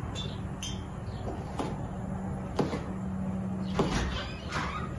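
A kitchen knife chopping vegetables, striking the cutting board in about five separate knocks roughly a second apart, over a steady low hum.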